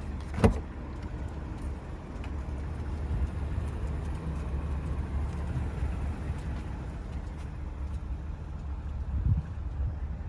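BMW 645Ci's stock 4.4-litre V8 idling steadily through the factory exhaust, its sound sitting low and even with no revving. A single sharp knock about half a second in.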